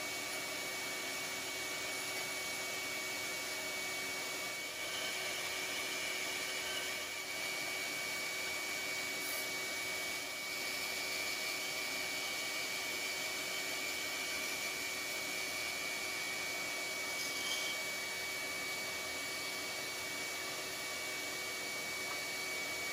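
Bandsaw running steadily with a narrow scroll blade, cutting through a block of wood: a constant motor-and-blade noise with a faint steady whine.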